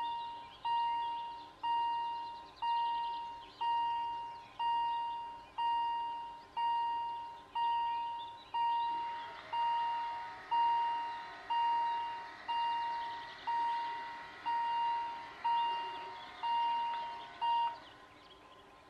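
Level crossing warning bell ringing about once a second, each stroke dying away. About halfway through, the barrier drive starts whirring as the booms lower, and the bell and the drive stop together as the barriers come down.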